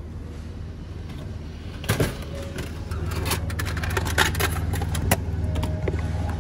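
Drinks vending machine dispensing a bottle of coffee: a sharp clunk about two seconds in as the bottle drops into the bay, then rattling and clicking of the bay flap and bottle as it is taken out, over a steady low hum.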